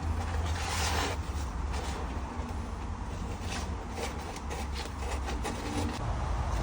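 Sheet of vinyl tint film being handled and cut to size: scattered short rubbing and scraping strokes and light clicks, the longest about half a second in, over a steady low rumble.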